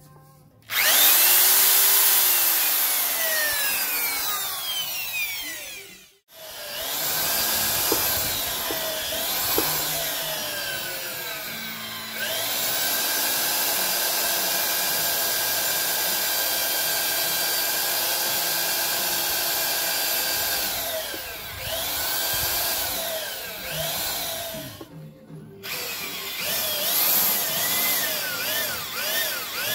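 Makita half-inch, high-torque, low-geared corded drill boring a long spade bit through a pressure-treated wooden piling. The motor whine rises and falls in pitch as the load changes. It stops and restarts twice, about 6 seconds in and again near 25 seconds.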